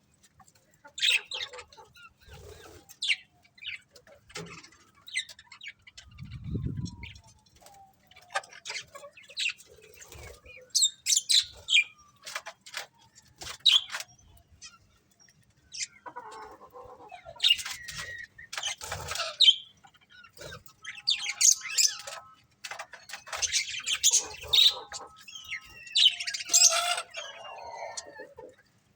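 A flock of budgerigars chirping and chattering in short, irregular bursts, sparse at first and busier in the second half.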